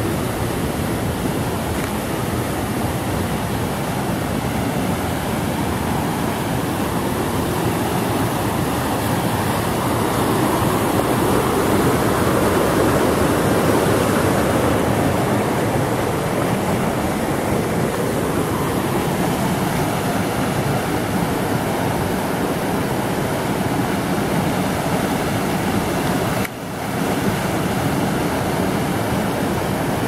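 Mountain river rushing over rocks and small rapids: a steady, loud rush of white water, swelling a little in the middle and dipping for an instant near the end.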